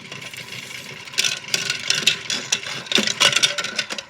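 Battery-powered toy washing machine running with pizza in it: its small motor and plastic drum make an uneven rattling and clicking.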